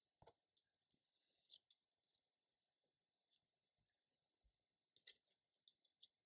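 Near silence with faint, scattered ticks and light taps of small paper die-cuts being handled, placed and pressed onto a card panel on a cutting mat.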